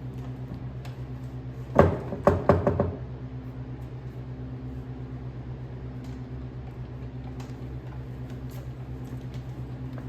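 An engine idling steadily with an even low pulse. A quick run of about four sharp knocks comes nearly two seconds in.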